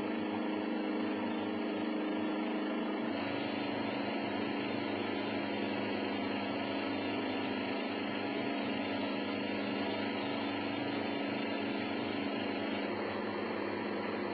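A steady engine drone with a constant hum, its low tone shifting slightly about three seconds in.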